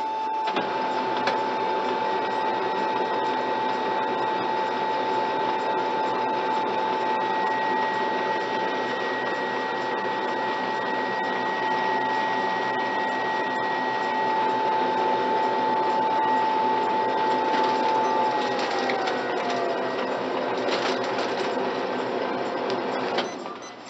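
Kyocera Ecosys FS-3140MFP+ laser printer's motors running steadily with a high whine, while the machine runs its cycle after detecting newly installed original toner. Near the end the whine slides down in pitch, and the running stops suddenly just before the end.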